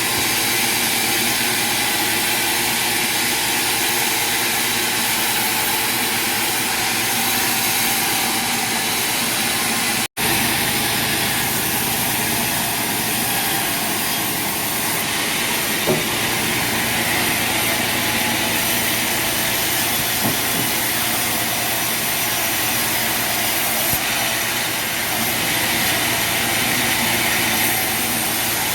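Sawmill machinery running steadily: a dense mechanical hiss with several steady high whines, breaking off for an instant about ten seconds in.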